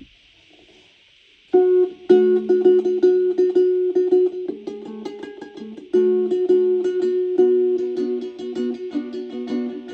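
Plucked string instrument playing quick repeated notes in a steady pattern, coming in suddenly about one and a half seconds in after a faint hiss.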